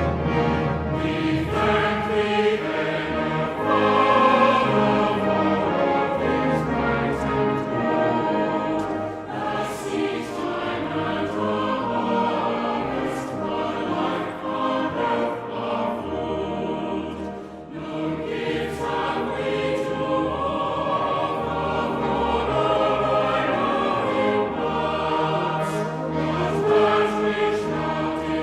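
A choir singing with instrumental accompaniment, with long held chords.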